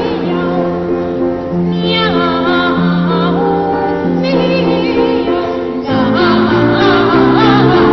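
Children's choir singing in imitation of cats' meows, with wavering, sliding vocal lines over a steadily held instrumental accompaniment. About six seconds in the accompaniment moves to fuller, quicker-changing chords.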